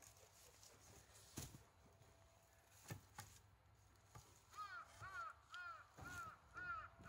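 A few faint, dull knocks of wooden shiitake logs being handled on the stack, then a bird calling in a run of about six short rising-and-falling notes, about two a second, over the last few seconds.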